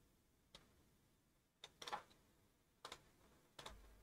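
Near silence with a few faint, scattered clicks from a computer mouse and keyboard.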